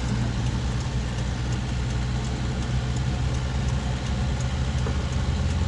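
A vehicle's engine running steadily at low revs while driving along, a constant low hum with road noise over it.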